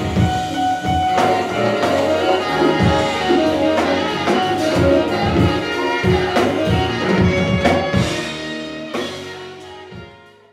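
Jazz band playing, with a saxophone carrying the melody over guitar, bass and drums. The music fades out over the last two seconds or so.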